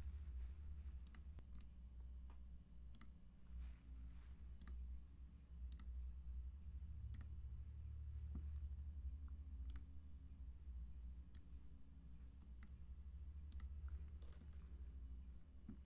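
Scattered clicks of a computer mouse, one every second or so at irregular intervals, over a low steady hum.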